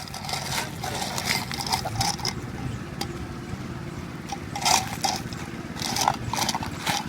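Street-market background noise: a steady low hum with scattered short clatters and knocks, two of them louder, around the middle and near the end.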